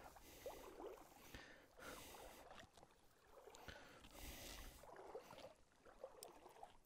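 Near silence, with faint sloshing of shallow water around an angler's waders as he wades, and a few soft clicks.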